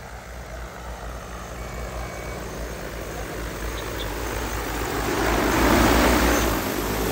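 DJI Agras T30 six-rotor crop-spraying drone flying in toward the microphone. Its rotor hum and rush of air grow steadily louder, loudest about six seconds in.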